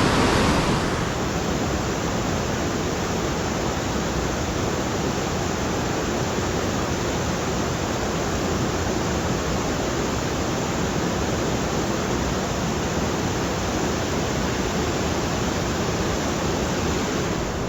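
Fast-flowing river water rushing steadily over rocks, heard close up.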